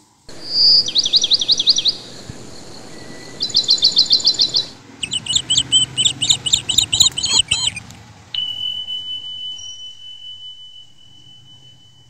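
Small birds chirping in quick repeated series of high notes and trills. About eight seconds in, a bell is struck once and rings on with one clear high tone that slowly fades.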